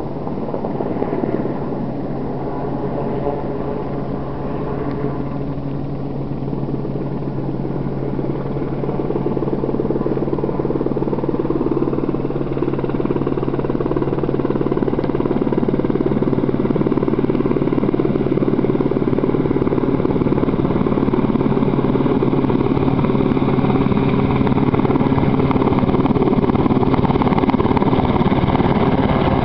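Search-and-rescue helicopter approaching to land, its steady engine and rotor noise growing gradually louder as it nears.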